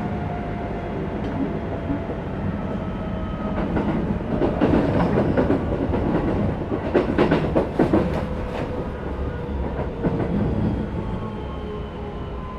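Keisei 3050 series electric train heard from inside its motor car while running, with the Toyo IGBT inverter and traction motor whine slowly falling in pitch as the train loses speed. The wheels clack over rail joints twice, about four and seven seconds in.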